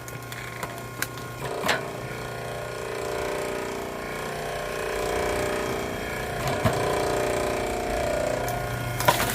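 Firewood-splitting machine working oak logs: a steady machine hum with a strained whine that builds through the middle, and a few sharp cracks from the wood.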